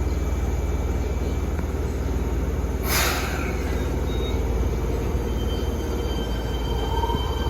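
Fukuoka City Subway 1000N series train running, with a steady low rumble and steady high whines: the jet-engine-like abnormal noise these trains are known for. A short hiss comes about three seconds in, and a motor tone rises in pitch near the end.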